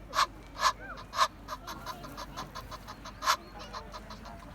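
Egyptian goose calling: three loud, harsh honks about half a second apart, then a quicker run of softer calls at about four a second, and another loud honk a little after three seconds in.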